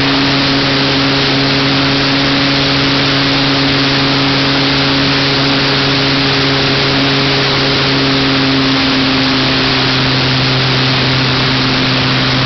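Electric motor and propeller of a Graupner Dandy RC model plane running steadily in flight, heard from the camera on board: a steady low hum over a loud rush of propeller wash and airflow on the microphone.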